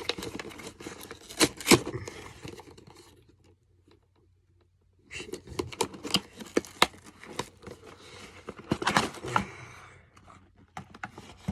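A laser level's box and packaging being opened and handled by hand: irregular rustling, scraping and crinkling with sharp clicks and knocks. There is a break of near silence a little after three seconds in, and the handling picks up again around five seconds.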